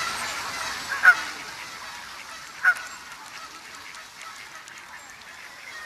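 Two short bird calls, one about a second in and another a second and a half later, over background noise that fades away during the first two seconds.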